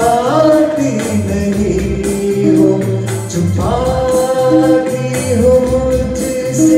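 Man singing a Hindi film song into a microphone over backing music with a bass line and a steady beat. He ends a line on a falling note, then holds one long note from about three and a half seconds in.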